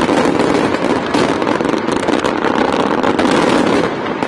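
A dense fireworks barrage: many bangs and crackles follow so closely that they merge into one loud, continuous rumble.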